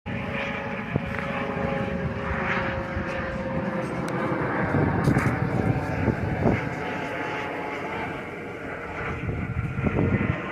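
Eurocopter AS565 Panther helicopter flying low and fast, its twin turboshaft engines and rotors running. A steady whine slowly falls in pitch over the first few seconds, and the noise grows rougher and louder about halfway through.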